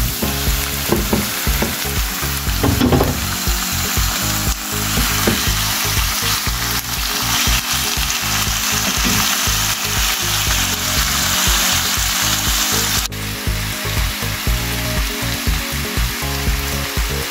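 Pieces of seasoned pork sizzling steadily in a hot frying pan with onion and carrot in rendered pork fat, turned over now and then with a wooden spatula.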